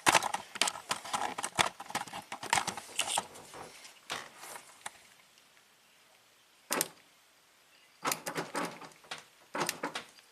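Irregular clicks and clattering from the automatic seat belt's rail mechanism being worked by hand: a rapid run of clicks, a pause, one click, then more clusters of clicks near the end. The belt is jamming in its track, its cable coming out of the rail.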